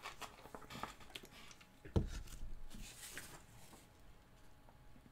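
A sheet of paper picked up off a desk and handled, crackling and rustling, with a dull thump about two seconds in; it settles down after about four seconds.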